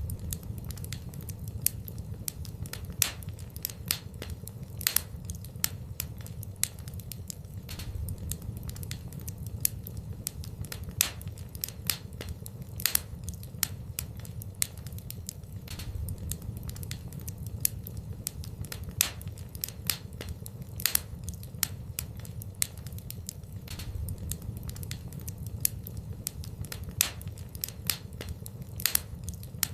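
Fire burning in a fireplace, crackling with irregular sharp pops and snaps, one to three a second, over a steady low rumble.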